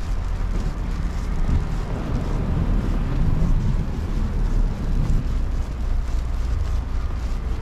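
Steady low outdoor rumble of wind on the microphone and street traffic, growing louder for a few seconds in the middle.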